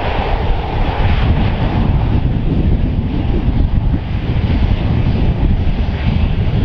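Airbus A380 jet engines running at taxi power, a steady rumble and hiss, mixed with gusty wind buffeting the microphone.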